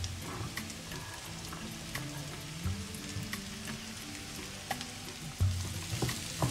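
Chopped vegetables sizzling in hot oil in a nonstick pan while a wooden spatula stirs them, with a steady hiss and scattered clicks and scrapes of the spatula against the pan; a sharp knock at the very start.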